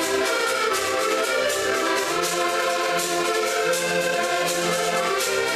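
Several button accordions playing a folk tune together in a held, reedy ensemble, with a steady percussion beat.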